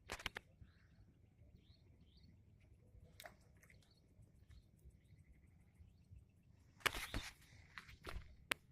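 Quiet outdoor background with a few sharp clicks and knocks, loudest in a cluster about seven seconds in, and faint high bird chirps in between.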